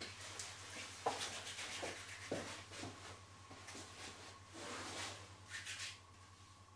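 Massage hands rubbing and stroking, a run of quick brushing strokes with a few soft taps in between, easing off near the end.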